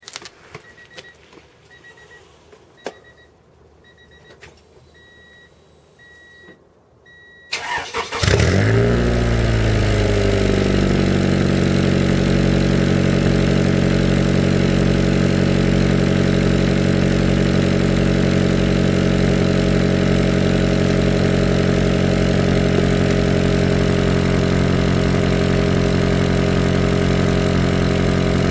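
A series of short high electronic beeps, then a Honda Prelude's engine cranks briefly, catches about eight seconds in, flares and drops back into a steady idle. It is heard through a 5zigen rocket muffler whose broken inner silencer has been pushed back into the pipe, which makes it louder than with the silencer intact.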